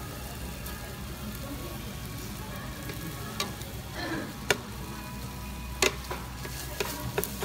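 Spicy stir-fried chicken (dakgalbi) and fried rice sizzling steadily in a large black pan on a tabletop burner, with a flat metal spatula scraping and clacking against the pan several times in the second half.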